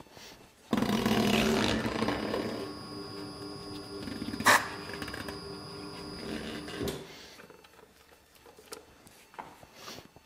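Hofmann monty tyre changer running: it starts abruptly about a second in with a rush of noise, then hums steadily as the machine works the wheel, with one sharp click midway, and stops about seven seconds in.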